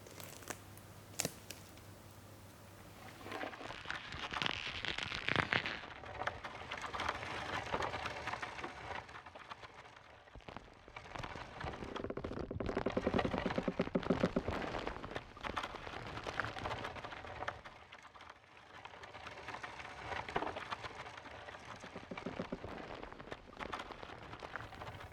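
A huge tree's trunk picked up through a contact microphone and amplified: a dense crackle of creaks and clicks as the wood's surface moves in the wind, swelling and easing in three waves. The loudest wave, about twelve to fifteen seconds in, becomes a rapid rasping stutter. Much of the vibration is put down to birds in the crown and animals living inside the tree.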